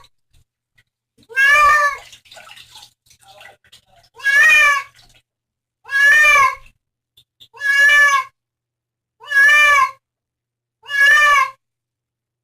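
A cat meowing over and over, six even meows about one and a half seconds apart, each the same slightly arched call.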